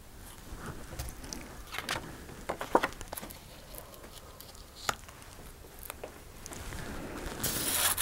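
Cut paper puzzle pieces being slid and laid down on a hard tabletop: scattered soft taps and paper rustles, with a few sharper taps partway through and a longer rustle near the end.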